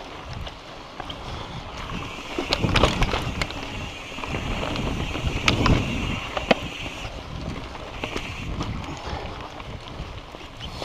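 Mountain bike rolling over a rough dirt and rock trail: tyre noise with repeated knocks and rattles of the bike over bumps, louder in clusters, and wind on the microphone.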